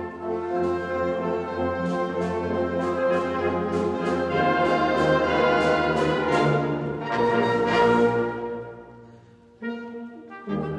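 Concert band of brass and woodwinds playing held, full chords. The phrase dies away about eight seconds in, and the band comes back in about a second later.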